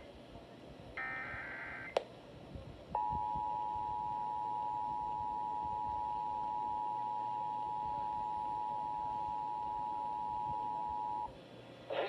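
Emergency Alert System header: the last of the screeching digital data bursts, a click, then the steady attention tone held for about eight seconds before it cuts off.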